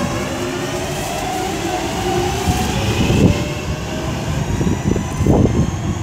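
Pair of Class 323 electric multiple units pulling out and accelerating past, with a steadily rising electric traction whine over the rumble of the wheels. A couple of short knocks come from the wheels as they run by.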